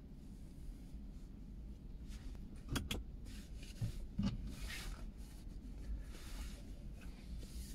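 Street ambience: a steady low rumble with soft swells of hiss, broken a little under three seconds in by two sharp clicks in quick succession and, about a second later, two dull knocks.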